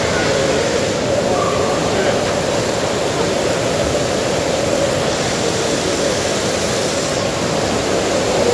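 Steady rush of water pouring from spa pool spouts into the pool.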